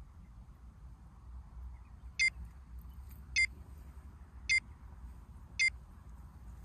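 Countdown timer sound effect: four short electronic beeps, evenly spaced about a second apart, each one marking a number ticking down. A faint low rumble lies under them.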